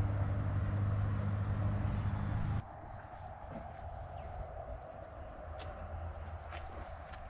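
A steady low engine hum stops abruptly a little over two seconds in. It leaves quieter outdoor ambience with the steady high buzz of insects, such as crickets, and a few light clicks.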